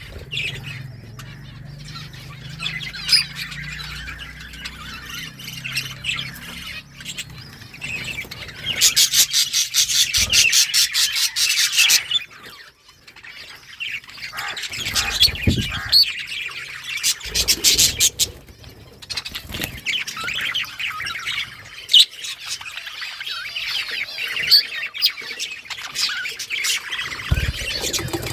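A flock of budgerigars chirping and chattering without a break. There are two louder spells of rapid pulsing, one about a third of the way in and one just past halfway, and a few low thumps.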